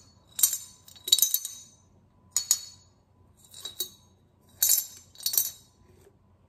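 Loose coins clinking and sliding inside a glazed ceramic coin bank as it is tilted back and forth, in about six short separate bursts.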